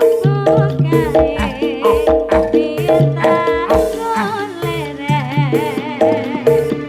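Live band music through a PA system: a wavering lead melody with vibrato over bass and a steady drum beat.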